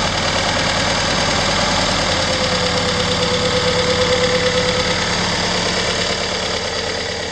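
Freshly rebuilt Willys F134 four-cylinder F-head engine in a 1962 CJ5, idling steadily with an even rapid pulse soon after being started.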